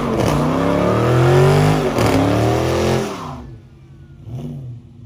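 Dodge Charger's Hemi V8 revving hard through a burnout, rear tyres spinning, the revs swinging up and down several times. About three seconds in the throttle comes off and the engine drops back to a much quieter, lower running sound.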